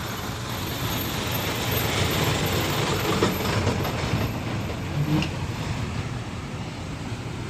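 Heavy diesel machinery running steadily, growing louder and rougher in the middle, with a couple of short metallic knocks.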